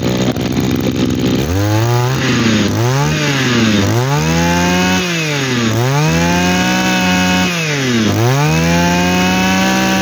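Komatsu two-stroke brush cutter engine idling for about a second and a half, then revved up and let back down about five times, the later revs held at high speed for a second or two. It picks up cleanly on each blip, and the seller rates its compression as very good.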